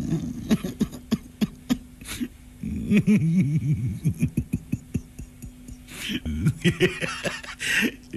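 A person's voice making rapid, choppy clicking and popping mouth sounds, beatbox-like, with a steady low tone held underneath from about two and a half seconds in.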